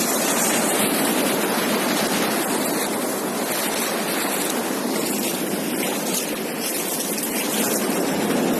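Surf washing on a beach: a steady rush of waves with gentle swells in loudness.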